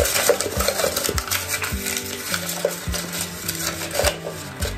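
Hard plastic makeup products clattering and clicking together as a hand rummages through them in a plastic bucket, over soft background music.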